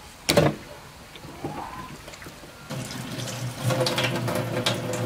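A brief loud knock just after the start. Then, about two and a half seconds in, a kitchen tap starts running and water splashes steadily into a stainless steel sink.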